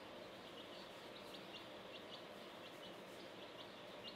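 Chicks peeping faintly: many short, high peeps, a few a second, over a steady background hiss.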